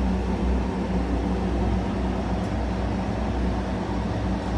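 Engine of a cable-pulling rig running steadily with a low drone while cable is pulled through underground duct.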